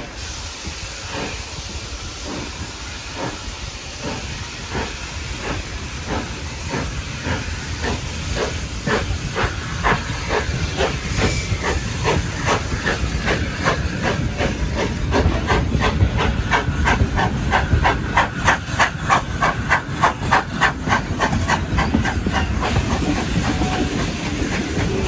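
Steam locomotive pulling away, heard from a carriage window: its exhaust chuffs go from slow beats to about four a second as it gathers speed. Under them runs the rumble of the coaches rolling on the rails.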